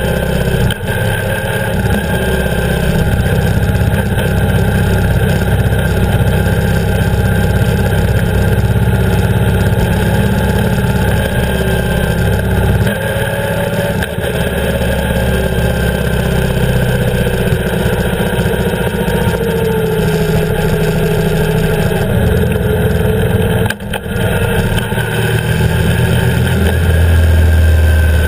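BMW R 1150 GS's boxer-twin engine running as the motorcycle rides at low speed, heard close up from the camera mounted by the engine and footpeg. The level dips briefly about three-quarters of the way through, and the engine grows louder and deeper near the end.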